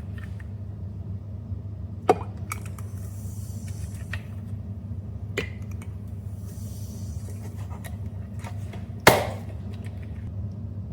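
A few sharp knocks and taps, the loudest about nine seconds in, over a steady low hum, with brief stretches of faint rustling.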